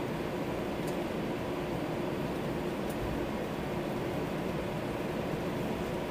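Steady cabin noise inside an Airbus A321-211: an even rush of engine and air-conditioning noise at a constant level with a faint low hum, the engines holding steady power rather than spooling up.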